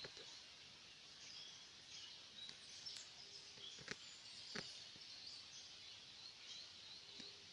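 Faint high-pitched chirping of wild animals in a natural setting, many short chirps over a steady hiss, with a few soft clicks.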